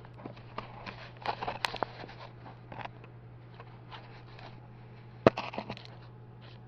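Faint scattered clicks and rustles of hands and camera handling close to the microphone, with one sharper click about five seconds in, over a steady low hum.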